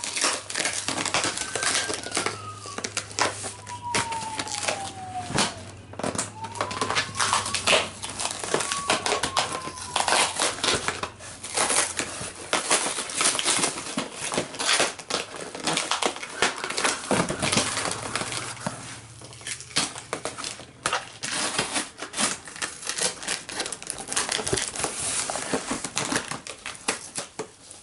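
Cardboard shipping box being torn open by hand: packing tape peeling and cardboard flaps scraping, crackling and tearing in irregular bursts. A few short squeals in the first ten seconds, which fit tape peeling off.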